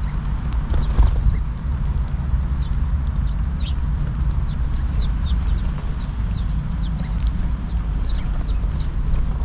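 A flock of house sparrows chirping busily, many short, quick chirps overlapping, with now and then a sharp tap from birds pecking or landing on the wooden bench. A steady low rumble runs underneath.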